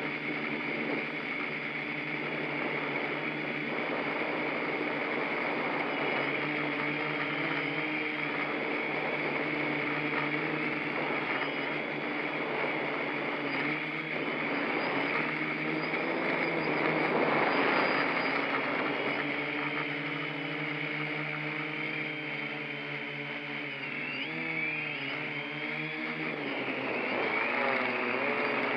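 A 3D-printed F450 quadcopter's motors and propellers whirring in flight, several tones at once over a rushing hiss. The pitch wavers throughout and swoops up and down more sharply near the end as the throttle changes.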